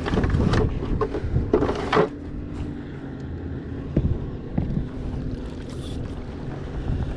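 Wind rumbling on the microphone, heaviest in the first two seconds and then settling lower. A sharp knock about four seconds in, and a softer one just after, come from gear being handled on the plastic kayak deck.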